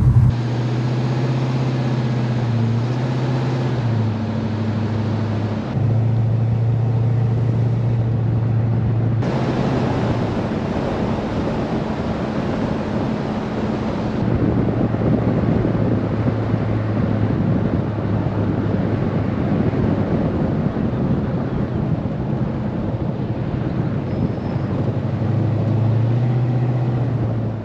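1969 Plymouth Road Runner's V8 running steadily at cruising speed, a low even engine note under wind and road noise. The engine pitch and the amount of wind shift a little a few times.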